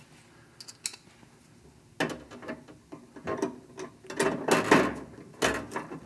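A screw being driven into a vending machine's sheet-metal panel by hand: a few light clicks, then from about two seconds in a run of irregular clicking, scraping and knocking of tool and metal.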